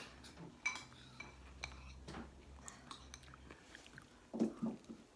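Quiet eating sounds: metal spoons clicking and scraping against bowls and soft chewing of ice cream and brownie, as scattered small clicks. A short, louder murmur of voice comes about four and a half seconds in.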